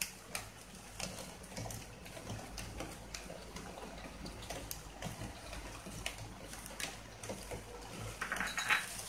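Thick milk sauce simmering softly in a pan on low heat, with a low, even bubbling and a few faint ticks and taps.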